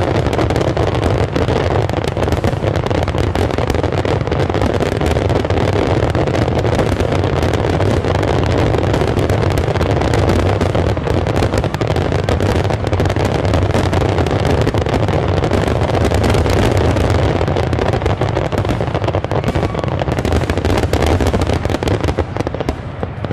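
Dense fireworks barrage: shells bursting so close together that the bangs merge into a continuous rumble, with crackling on top. Near the end it thins to separate bangs and grows quieter.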